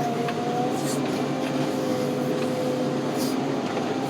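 A heavy car-carrying machine's engine running steadily, with a steady two-note whine over a low hum.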